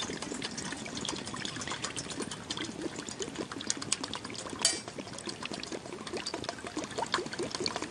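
Water pouring in a steady stream from a bottle into a camping pot heated on a burning spirit stove, hissing as it hits the hot pot. There is a brief click about halfway through.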